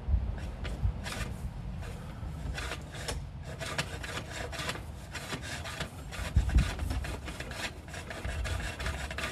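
Irregular scraping and rubbing from a sewer inspection camera being pushed along a sewer pipe, its head and cable dragging on the pipe.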